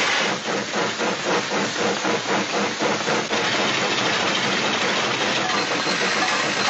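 Steam-train sound effect: a hissing chuff that beats about three times a second for roughly three seconds, then settles into a steady hiss.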